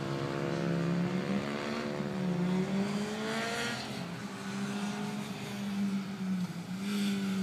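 Racing motorcycle engines running at speed around the circuit. The revs rise about two to three seconds in and again near the end.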